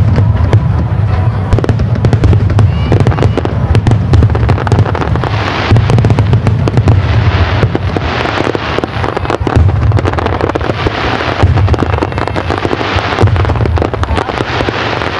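Aerial fireworks going off in a continuous barrage: repeated deep booms under a dense run of crackling pops, the crackle thickest from about five seconds in.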